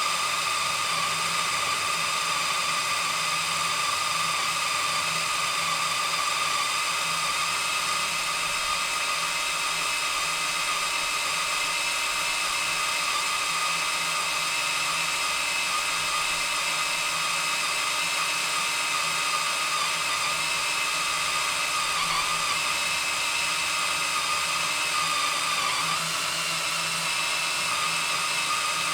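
Cordless drill boring into steel, its motor and bit whining steadily with a high-pitched tone. The pitch shifts slightly twice in the last third.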